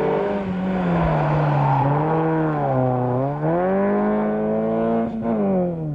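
Rally car engine revving hard through a corner: the engine note drops about halfway through, climbs again, and falls away near the end.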